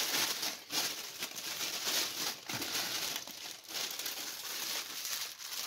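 Clear plastic oven roasting bag crinkling and rustling as it is handled and squeezed, a run of rustles with short breaks.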